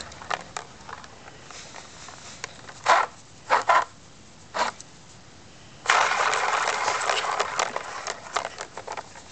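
Plastic ball rolling and rattling around the enclosed track of a cat toy: a few small clicks, three short spurts about three seconds in, then a longer rattling run from about six seconds.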